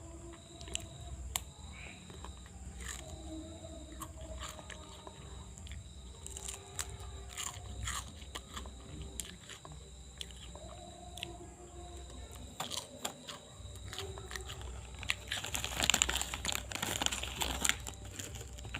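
Hands massaging a patient's body in traditional urat therapy: scattered sharp clicks and crackles of rubbing and pressing on skin, thickening into a dense crackling stretch near the end.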